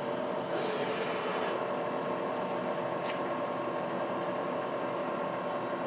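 Spindle of a Bridgeport Explorer X-26 CNC vertical mill running steadily at 2200 RPM, a smooth even hum of several steady tones; it "sounds real nice". A short hiss comes about a second in.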